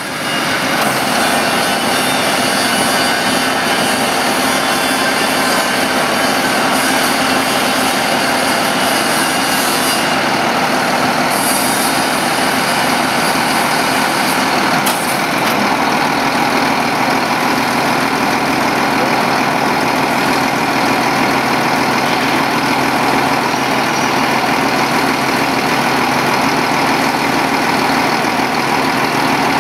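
Hook-lift truck's diesel engine running steadily while its hydraulic hook arm raises.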